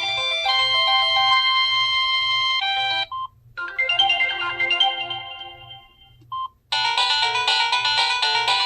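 Samsung SGH-T309 phone playing its built-in polyphonic ringtones one after another through its speaker. One melody cuts off about three seconds in and a short beep follows. A second chiming tune then plays and fades out, and after another short beep a brighter, busier tune starts near the end.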